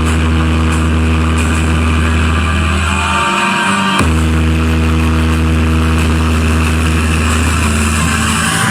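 Car sound system's subwoofers playing a loud, steady deep bass tone with overtones above it. The tone drops out a little after three seconds and comes back abruptly about four seconds in.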